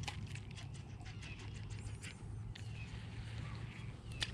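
Faint, rapid, irregular ticking and clicking from a baitcasting reel as the rod is cast and the line reeled in. It thins out about halfway through.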